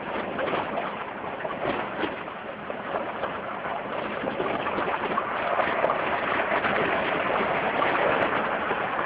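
Jeep Wrangler driving off-road over rough ground: a steady crackling, rattling noise with no clear engine note, growing louder over the last few seconds.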